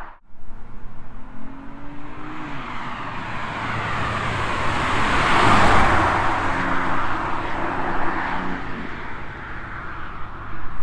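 A performance car accelerating past, its engine and exhaust building to loudest about halfway through, then fading as it drives away.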